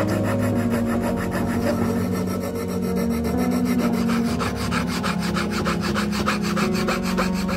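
Rapid, even rasping strokes of a tool working wood, about eight strokes a second.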